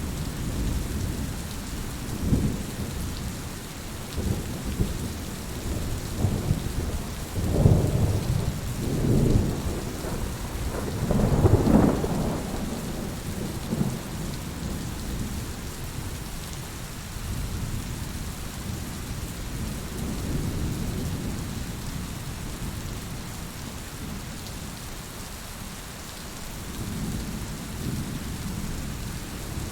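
Steady heavy rain with thunder rumbling, the rumble swelling loudest about a third of the way in, then dying back to softer rolls under the rain.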